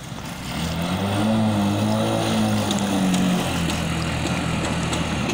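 Engine of a home-built amphibious flood-rescue motorbike revving up about half a second in and running hard as the machine drives across open water, its pitch dipping slightly about three and a half seconds in.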